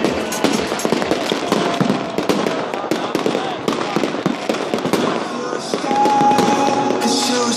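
Aerial fireworks bursting overhead, a dense run of bangs and crackles. Music with long held notes comes in about six seconds in.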